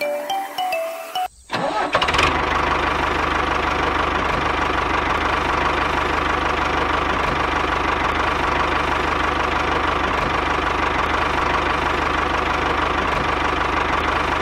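A diesel tractor engine sound starts about a second and a half in, then runs steadily at a constant speed.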